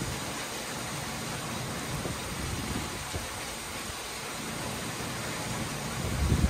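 Heavy rain falling in a steady hiss during a thunderstorm. Low rumbles come and go, and the loudest swells near the end.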